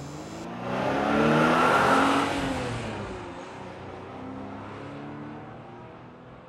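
Truck engine accelerating past. It is loudest about one to two seconds in, then drops in pitch and fades as the truck drives away.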